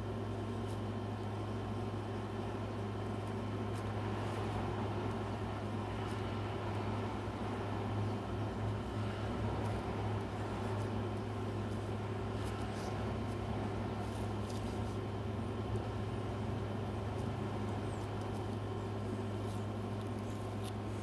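A steady low hum, likely from a machine or appliance running in the room, with faint scratches of a pencil on paper now and then.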